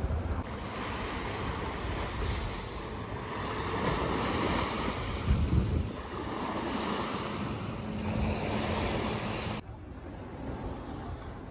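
Small sea waves washing over a rocky shoreline, the surf swelling and easing several times, with wind buffeting the microphone. Near the end the sound drops suddenly to a quieter level.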